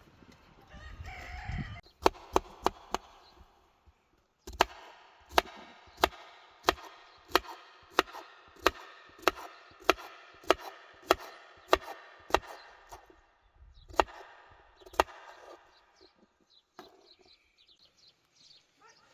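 Knife chopping vegetables on a cutting board: sharp knocks at a steady pace of about three a second for several seconds, with a few scattered strokes before and after the main run.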